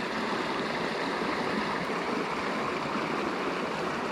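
Steady rush of a flowing mountain creek.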